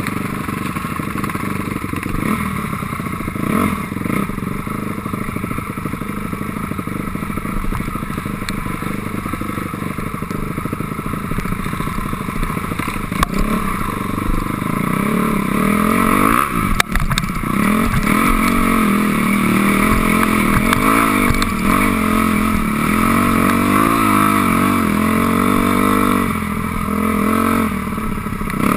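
2006 Honda CRF250R dirt bike's single-cylinder four-stroke engine running under way on a rough trail, the revs rising and falling with the throttle. A little past halfway it gets louder, and the pitch swings more often as the throttle is worked.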